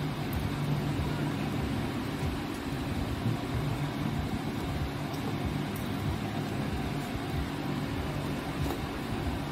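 Steady low hum and hiss of background noise, with a few faint ticks as dry rusk toasts are set down in a glass dish.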